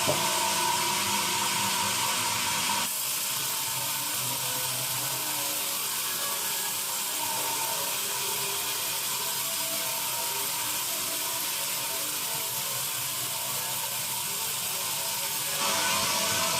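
Sawmill bandsaw machinery running with a steady mechanical noise. It is louder for the first three seconds, drops suddenly, and grows louder again near the end.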